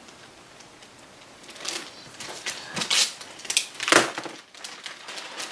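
Plastic model-kit sprue and its packaging being handled: rustling and clattering start about one and a half seconds in, with a sharp knock about four seconds in.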